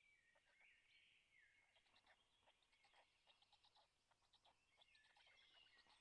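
Faint wild birdsong: small songbirds singing, with a few whistled, gliding phrases in the first second and a half and rapid chattering notes throughout.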